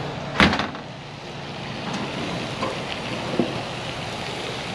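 Pork and skirt steak sizzling on a grill, a steady hiss, with one loud clank about half a second in as the grill lid is opened and a couple of light taps later.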